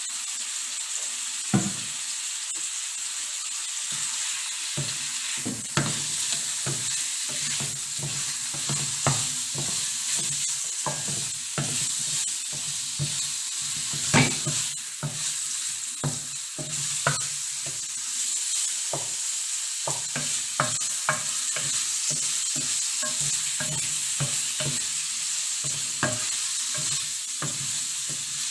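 Food sizzling in a frying pan with a steady hiss, while a utensil stirs it and knocks irregularly against the pan, one knock louder about halfway through.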